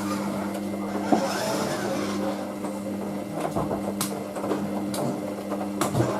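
Hoover DYN9144D3X washing machine running a 40 °C main wash with towels: a steady motor hum, with a few sharp clicks about one, four and six seconds in.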